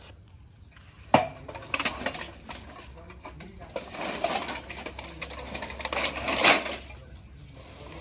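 Rusty scrap steel clinking and clattering as pieces are picked out of the scrap load and handled, with a sharp clank about a second in and a louder clatter near the end.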